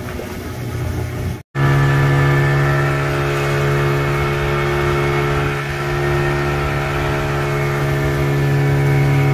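Motorboat engine running at a steady, constant speed, an even drone. About one and a half seconds in the sound drops out for an instant, then comes back louder and unchanging.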